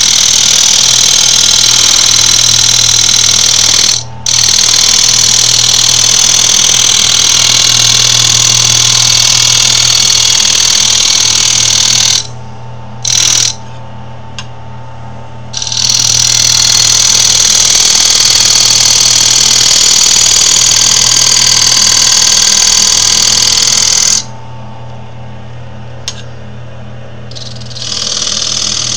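Wood lathe running, with a cutting tool pressed against the spinning wood in three long passes, each several seconds long, plus a short touch in between. The cutting gives a loud, high-pitched scraping hiss. Between passes only the steady hum of the lathe is left.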